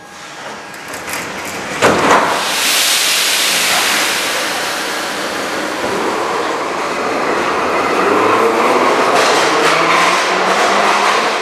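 A Soviet-built 81-717-series metro train's doors slam shut with a loud thump about two seconds in, then the train pulls away from the platform, its wheels and motors building to a loud, steady rumble before easing as it enters the tunnel.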